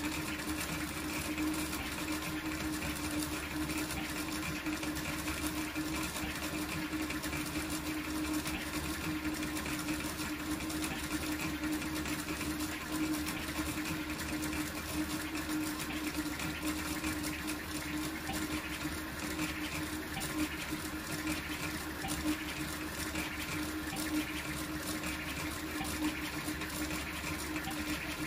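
Large toolchanger 3D printer printing at high speed: stepper motors and gantry chattering through rapid short moves over a steady hum. The sound goes on evenly with no pause.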